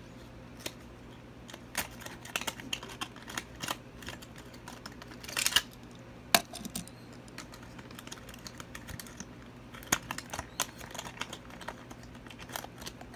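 A diecast truck's plastic-windowed box being opened by hand: irregular clicks, taps and short crinkly rustles of plastic and cardboard, with a longer crinkling rustle about five and a half seconds in.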